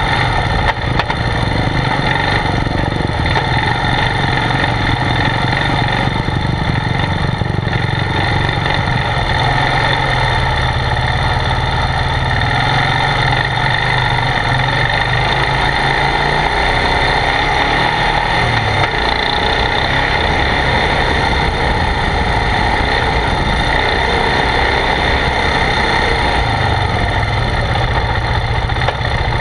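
ATV (quad) engine running at a steady, moderate speed while riding over sandy dirt trails, heard up close through a camera mounted on the machine's rack.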